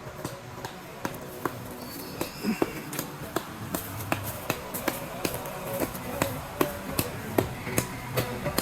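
A run of sharp knocks at a fairly steady pace, about two or three a second, with a few held tones underneath.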